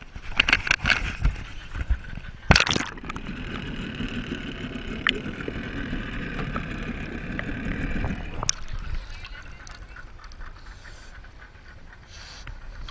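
Sea water splashing around a swimming pig. About two and a half seconds in there is one loud splash, and the sound turns dull and muffled as the microphone goes underwater. It cuts back to open-air water noise a few seconds later as the microphone surfaces.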